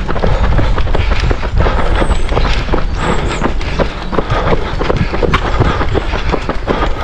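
Running on a treadmill: repeated footfalls thudding on the moving belt over the steady low rumble of the treadmill's motor and belt.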